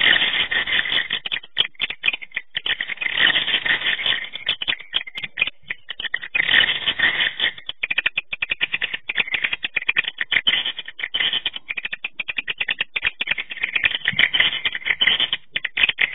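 Swiftlet calls: a dense, rapid chatter of clicks and chirps, unbroken throughout.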